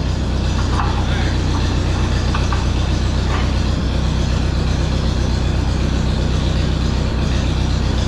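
Farm tractor engine idling steadily at a constant pitch.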